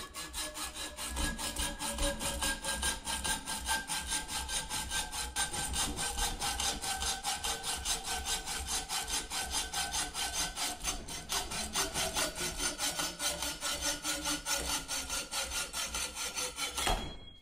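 Hand hacksaw cutting through a light die-cast metal projector housing held in a vise: steady, rapid back-and-forth strokes, with a faint ringing from the metal, stopping just before the end.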